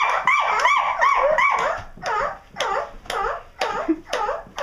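High-pitched, dog-like yipping and whimpering calls, each rising then falling in pitch. They come in a quick run of about three a second, then from about two seconds in slow to separate yelps about two a second.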